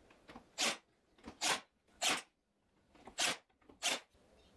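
Makita cordless nailer firing nails into plywood: five short, sharp shots about two thirds of a second apart.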